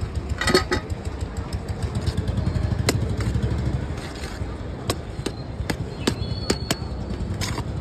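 Steel spoon scraping and clinking against the side of a large steel pot while rice is scooped out, with several sharp clinks in the second half. A steady low traffic rumble runs underneath.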